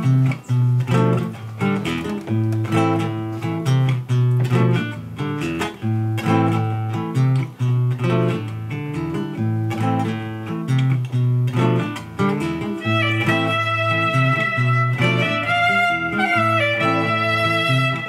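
Nylon-string classical guitar playing a plucked instrumental introduction. A violin joins about thirteen seconds in with long bowed notes over the guitar.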